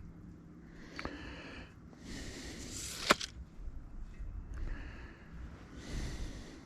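Heavy breathing close to a chest-worn microphone: breaths a second or two apart while working, with a sharp knock about three seconds in and a smaller one about a second in.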